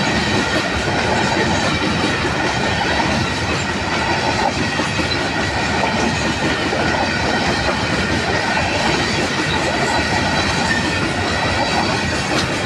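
Freight train of hopper wagons rolling past close by: a steady, loud noise of steel wheels running on the rails, with a thin high ringing tone running underneath.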